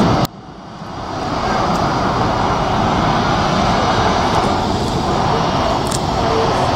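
Jet airliner engines at takeoff thrust, a steady rushing roar as an Airbus A320-family jet climbs out. The sound drops away abruptly just after the start and swells back to full strength within about a second.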